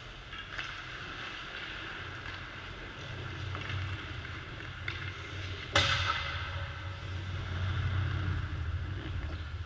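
Ice hockey practice: skate blades scraping and carving on the ice over a low steady hum, with one sharp crack of a puck strike about six seconds in that rings briefly.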